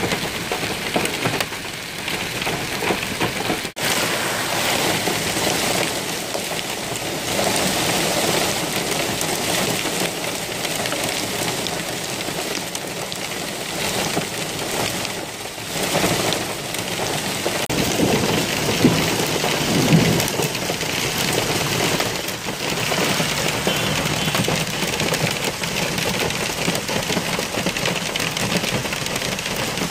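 Heavy rain mixed with hail pelting down on a road and a car, a dense, steady hiss and patter. A deeper rumble swells about eighteen to twenty seconds in.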